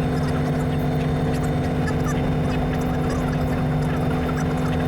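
Robinson R44 Raven I helicopter's six-cylinder Lycoming piston engine and rotor system running steadily at a constant pitch.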